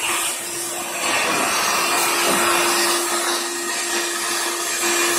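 Vacuum cleaner running steadily with a steady whine, its hose sucking up cockroaches. It gets slightly louder about a second in.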